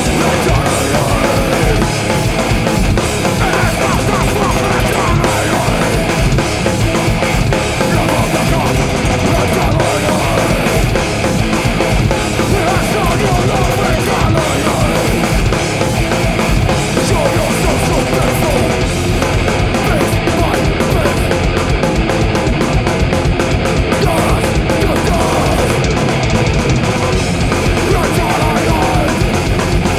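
A heavy rock band playing live at full volume: guitar, bass and drums in a dense, aggressive, unbroken wall of sound.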